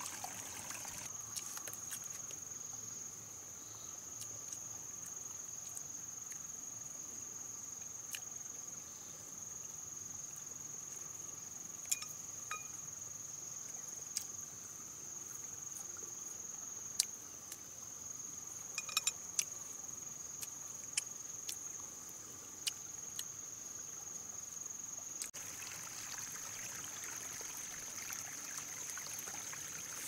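Steady high-pitched drone of insects, with a fainter, lower steady tone beneath it over a light hiss. Scattered sharp clicks and ticks come through, and a broader hiss rises near the end.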